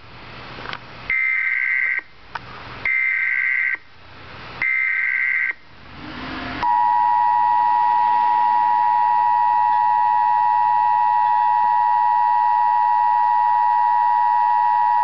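Emergency Alert System broadcast signal for a tornado warning: three short bursts of warbling digital SAME header data, about a second each, then the long steady two-tone attention signal starting about halfway through.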